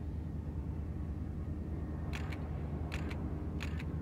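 Diesel freight locomotives rumbling steadily as an aggregate train rolls past. From about halfway, wheels click over rail joints in pairs, a little more than one pair a second.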